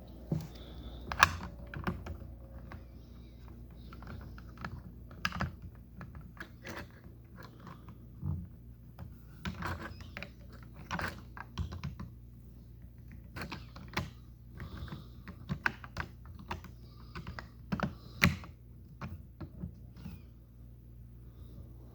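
LEGO pieces being handled and snapped together: irregular small plastic clicks and taps, sharpest about a second in and again near the end, over a low steady hum.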